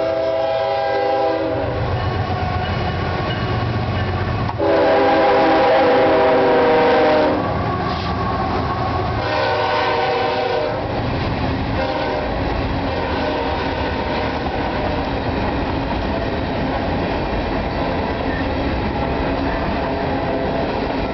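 CSX diesel freight locomotive sounding its multi-chime horn in several blasts for the grade crossing, the longest and loudest a few seconds in and a shorter one as the locomotive passes. The rumble and clatter of the train's hopper cars rolling by run under it throughout.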